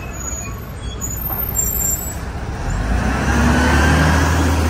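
City bus engine running close by amid street traffic, its low rumble swelling up loud a little over halfway through.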